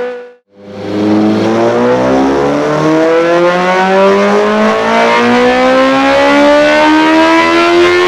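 Honda CBR600 F4i's inline-four engine through a Dominator aftermarket exhaust, revving in one slow, steady climb as in a dyno pull. The sound cuts out briefly near the start, then the new run picks up about a second in.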